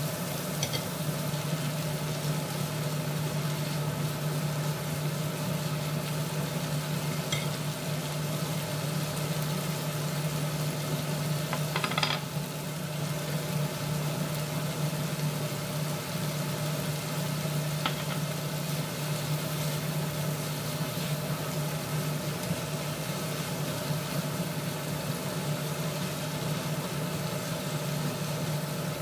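Sliced bell peppers and onions sizzling as they fry in a pan, stirred now and then with a utensil that gives a few short scrapes and clicks against the pan, the loudest about twelve seconds in. A steady low hum runs underneath.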